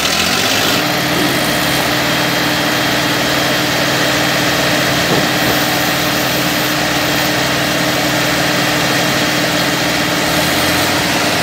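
Tractor diesel engines of a Mahindra 575 DI and a Farmtrac 45 running hard under heavy load, pulling through wet, muddy soil. The revs climb in the first second and then hold steady.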